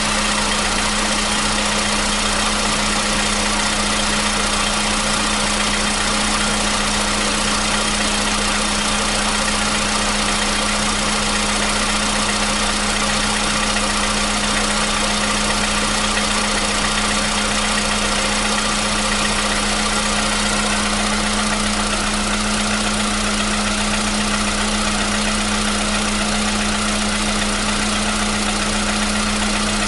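Volkswagen Polo Sedan petrol engine idling evenly shortly after a cold start, with a steady hum and no cold-start knock: the knock it used to make on cold starts has gone.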